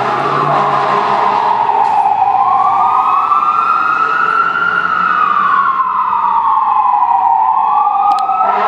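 Fire engine's Whelen electronic siren sounding a slow wail, rising and falling in pitch, one full cycle taking about six seconds. A second wail overlaps it near the start and the end.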